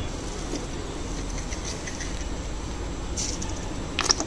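Steady low rumble of a gas stove burner heating an aluminium kadai while sesame oil is poured into it in a thin stream. A few sharp clacks come about four seconds in and are the loudest sound.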